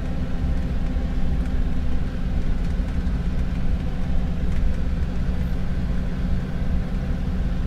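A Ford car's engine and road noise while cruising steadily, a constant low hum.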